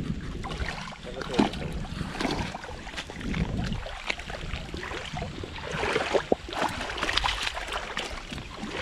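Wind rumbling on the camera microphone, with splashing and scattered clicks and knocks as a small fish is reeled through shallow water and dragged up onto the stones.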